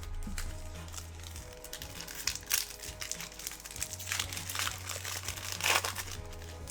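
A trading card pack's wrapper being crinkled and torn open by hand, in a run of crackling rustles with the loudest crinkles about two seconds in and near the end. Background music plays under it.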